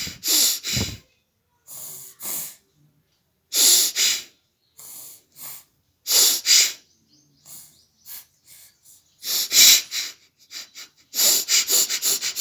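A person sneezing over and over: loud, sudden sneezes about every two seconds, many coming in pairs a fraction of a second apart, with fainter breaths or snuffles between.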